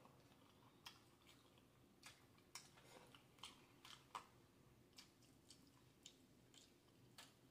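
Faint eating sounds: quiet chewing, with irregular soft clicks and crackles from fingers picking through crab legs and potatoes in a seafood boil.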